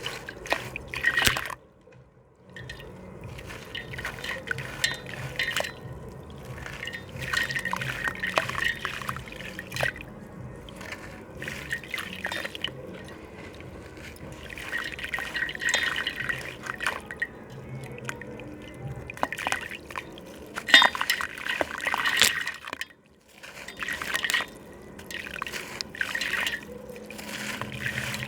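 A gritty slab crumbling and breaking apart in water, with crackling clicks and water dripping and trickling. It comes in bouts of a few seconds, with two brief pauses, about two seconds in and near the end.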